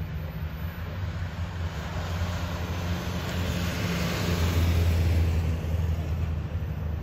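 Vintage light racing car driving past on the track, its engine drone growing louder as it approaches, loudest about four to five seconds in as it passes close, then fading away.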